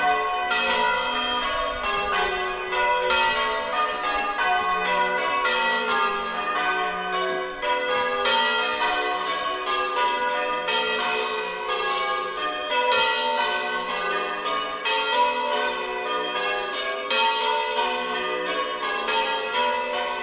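Church tower bells rung by the ringers in changes: an unbroken run of bell strikes, several a second, each note ringing on into the next.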